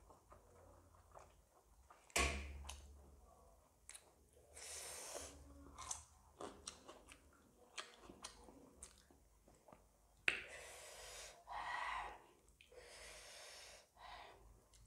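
Close-miked chewing and slurping of spicy noodles and momos, with a few sharp clicks.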